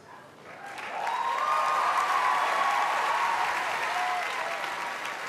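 Large theatre audience applauding and cheering. The applause swells in about a second in, then eases slightly toward the end.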